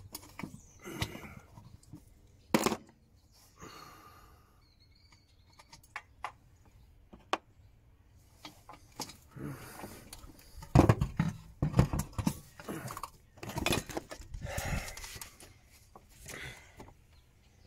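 Scattered clicks, knocks and rattles of metal and plastic engine parts and tools being handled as the spark plug wire connector holder is worked free in the engine bay. There is a sharp knock about two and a half seconds in and a run of louder knocks in the second half.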